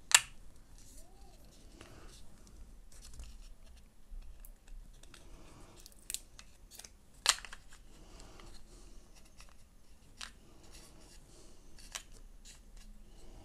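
Small plastic clicks and faint rustling from wireless earbuds and their charging case being handled while the protective film is peeled off the buds. There is a sharp click just after the start and another about seven seconds in, with lighter ticks between.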